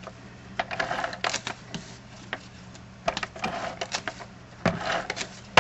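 Handheld adhesive tape runner pressed and dragged across cardstock, giving short bursts of ratcheting clicks and rasps: a cluster about a second in, then more from about three seconds in.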